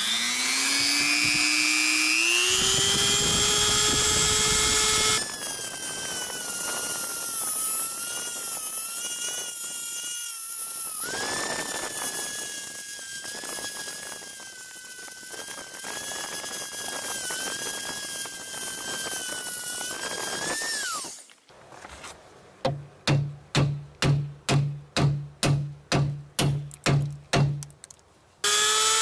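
Dremel high-speed rotary tool spinning up with a rising whine, then grinding notches into a seized ball joint at the steering knuckle, its whine wavering under load. Near the end come about a dozen evenly spaced sharp knocks, about two a second.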